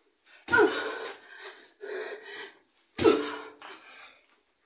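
A woman kicking a wall barefoot: two dull thumps about two and a half seconds apart, each with a sharp, forceful cry from her that drops in pitch and fades.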